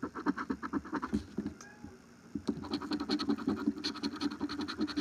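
A coin scraping the coating off a scratch-off lottery ticket in quick, rapid back-and-forth strokes, with a short pause about two seconds in.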